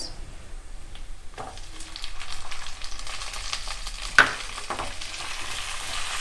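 Tomatoes frying in oil with browned onions and ginger-garlic paste, sizzling while being stirred; the sizzle grows about a second and a half in. A few sharp knocks, the loudest about four seconds in.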